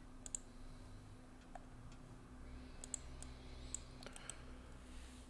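Several faint, sharp clicks at a computer, from mouse and keyboard use, coming irregularly, over a faint steady hum.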